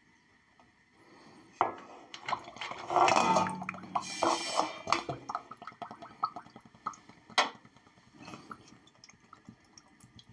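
Flushing oil running and dripping from a lathe headstock's drain into a handheld metal pan, with clinks of the pan. It splashes hardest about three and five seconds in, then thins to scattered drips.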